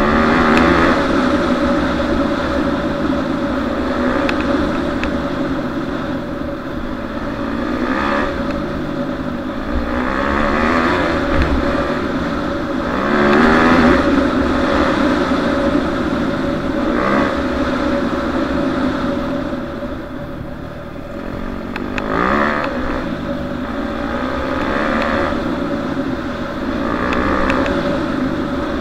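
Yamaha YZ250F four-stroke single-cylinder dirt bike engine under way, revving up and dropping back again and again as the bike rides along a dirt track, with wind buffeting the microphone.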